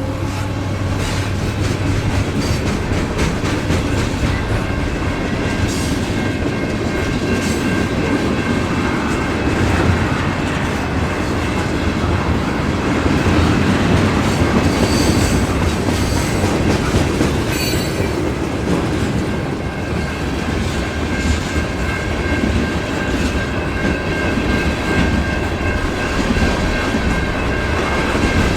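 Freight train cars rolling past in a steady rumble, their wheels clicking over rail joints, with a faint thin wheel squeal in the latter part.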